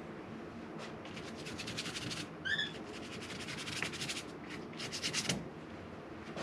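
Paintbrush dragging thick acrylic paint across the painting surface in bursts of scratchy strokes. A short high chirp about two and a half seconds in.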